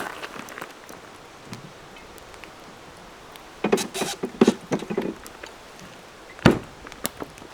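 Handling noises: scattered rustles and light clicks, then a cluster of knocks and clatter a little past halfway, and one sharp knock near the end.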